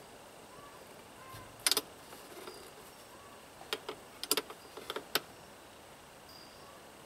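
Metal wrench clinking against a battery terminal nut as it is tightened: one sharp click a little under two seconds in, then a quick run of clicks around four to five seconds in.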